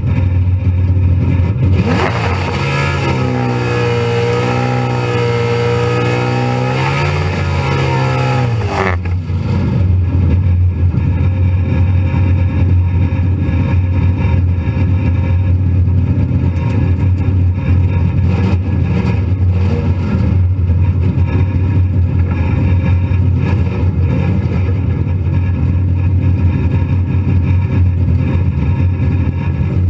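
Car engine running with a steady low drone. For the first several seconds a second engine note wavers up and down over it, then cuts off sharply about nine seconds in.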